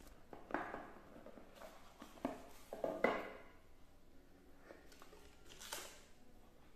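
Cardboard smartphone box being opened on a glass tabletop: the lid pulled off and set down, with a few short scrapes and rustles of cardboard, the loudest about three seconds in.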